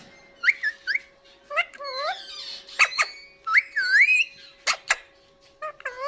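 Alexandrine parakeet giving a run of short whistled calls that slide up and down, with a few sharp clicks between them. A faint steady hum runs underneath.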